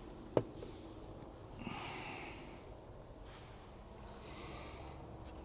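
Faint breathing close to the microphone: two soft breaths, with a small click about half a second in.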